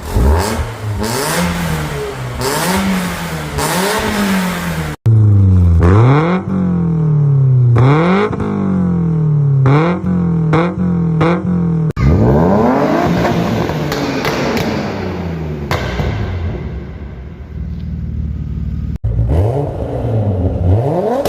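BMW E30 engines being revved in a run of separate clips: repeated throttle blips, the pitch rising and falling with each one, quick short blips in one clip and a longer climbing rev in another. The sound breaks off and changes abruptly three times where one clip cuts to the next.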